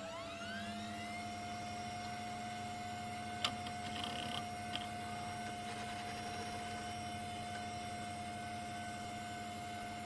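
Old computer terminal powering up: an electronic whine rises in pitch over the first second, then holds as a steady tone over a low hum. There is a sharp click about three and a half seconds in.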